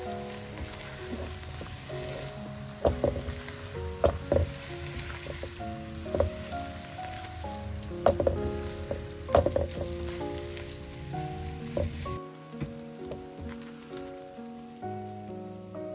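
Napa cabbage stir-frying in a nonstick wok: a steady sizzle, with a silicone spatula scraping and knocking against the pan several times, the sharpest knocks about three, four, eight and nine seconds in. Soft background music plays underneath.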